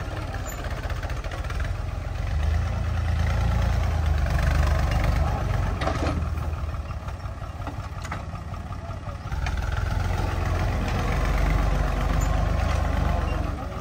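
Al-Ghazi tractor's diesel engine running under load as its rear scraper blade pushes into a mound of earth. The engine gets louder twice, about two seconds in and again past the middle.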